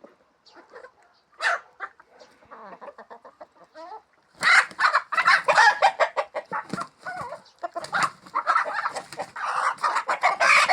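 Chickens clucking: a few soft calls, then from about four seconds in a loud, dense run of rapid clucks and squawks from several birds.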